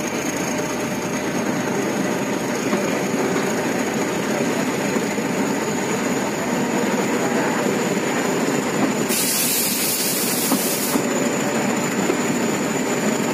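Narrow-gauge Kangra Valley toy train pulling out of a station, heard from the open coach doorway: the steady running noise of the coaches' wheels on the rails, with a thin, steady high whine. About nine seconds in, a hiss lasts for about two seconds.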